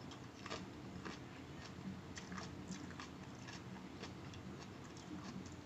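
Close-up chewing of rice and egg curry: soft, wet mouth smacks and clicks several times a second, mixed with fingers squishing rice and curry on a plastic plate.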